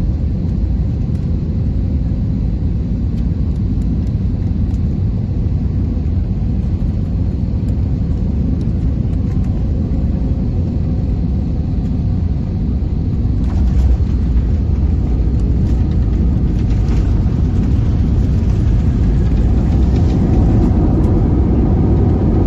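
Airliner cabin noise during a landing: a steady low rumble on final approach. Then comes touchdown about thirteen seconds in, after which rattling joins the rumble and the noise grows steadily louder as the plane rolls out on the runway.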